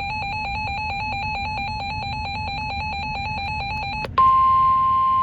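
A rapidly pulsing electronic alarm tone. About four seconds in, the louder, steady single-pitch NOAA Weather Radio warning alert tone (about 1050 Hz) cuts in, announcing the next severe thunderstorm warning broadcast. Faint radio hiss lies underneath.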